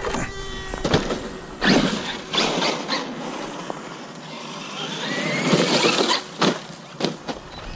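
Traxxas Maxx RC monster truck driving, its electric motor whine rising in pitch as it speeds up around the middle, over a hiss of tyres on snow and dirt. Several sharp knocks come through, mostly early on and again near the end.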